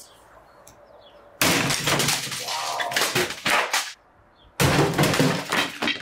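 Sledgehammer smashing down on a computer keyboard lying on top of a Bosch washing machine: a sudden loud crash of breaking plastic and the machine's top giving way, with pieces clattering, about a second and a half in. A second loud crash follows after a short pause, near the end.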